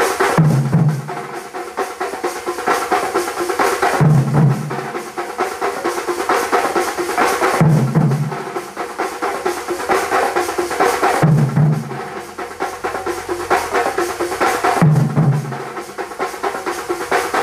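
Thambolam street drum band: many stick-beaten drums played together in a dense, fast rhythm. A deep low beat comes back about every three and a half seconds.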